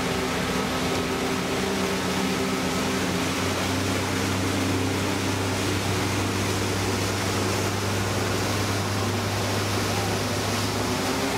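Motorboat engine running steadily under way while towing, with a constant rush of wind and water; its low hum grows stronger a few seconds in.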